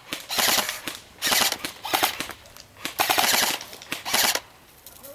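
Airsoft rifles firing on full auto: about five short bursts of rapid shots in quick succession, stopping about four and a half seconds in.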